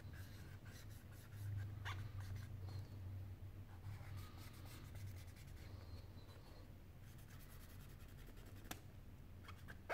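Faint scratching and rubbing as a cotton swab scrubs the metal mid-frame of a Sony Xperia Z5 phone, with scattered small ticks and a sharp click near the end, over a low steady hum.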